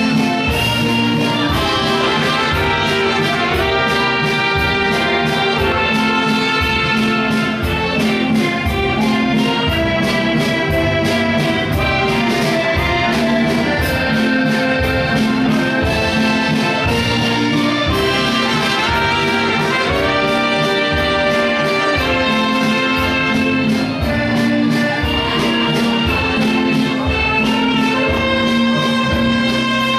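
Dance band playing music for couples' dancing: a steady drum beat under a sustained melody line.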